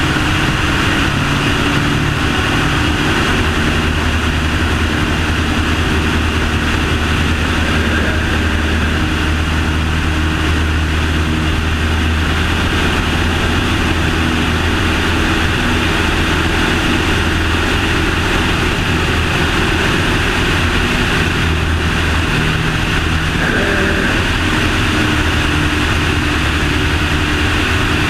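Aircraft engine and propeller droning steadily in flight, heard from a wing-tip camera with heavy wind rush over it. The engine note steps up slightly about 23 seconds in.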